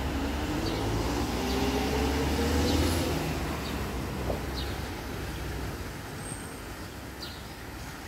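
A road vehicle passing on the street, its engine note rising as it accelerates over the first few seconds, then fading away as it goes off.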